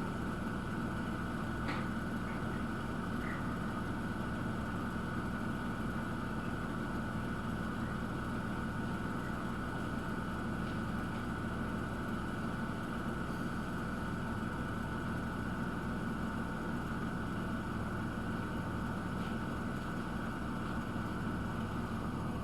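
Miele W1 washing machine running just before its spin, giving a steady hum with a constant high whine over it. This is the strange noise that the service put down to the machine not standing level or not being used properly.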